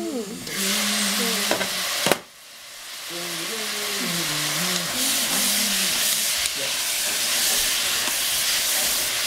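Sliced cabbage sizzling as it fries in a pot and is stirred with a wooden spatula. A sharp knock about two seconds in briefly breaks the sizzle, which then builds back up.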